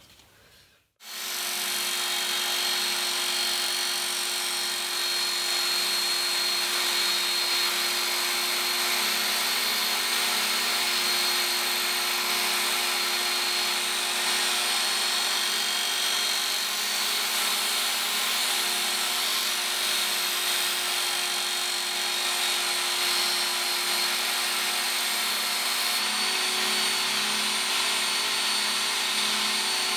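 Work Sharp Ken Onion Edition belt sharpener switched on about a second in, its motor and abrasive belt running with a steady hum while a machete is sharpened on the worn coarse belt. Its tone shifts slightly near the end.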